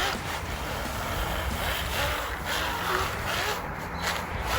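Radio-controlled snowmobile running with its brushless electric motor whining, the pitch rising and falling as the throttle changes, over a steady rushing noise.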